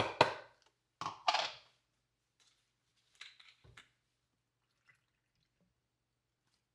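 Water poured into a blender jar packed with frozen fruit, heard as a few short splashes and knocks in the first two seconds, with a few fainter ones later; the blender is not running.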